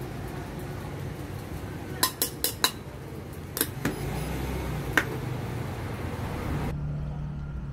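Metal spoon and tin of Milo powder clinking: four quick sharp clinks about two seconds in, then three more, spaced out, over a steady low hum.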